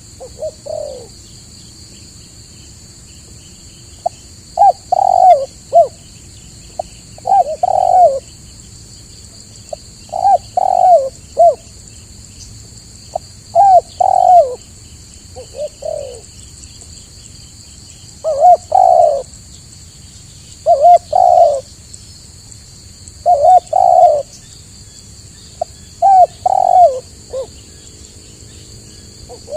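Spotted dove cooing loudly: short phrases of two or three low, falling notes, repeated about every two to three seconds. A faint steady high hiss runs underneath.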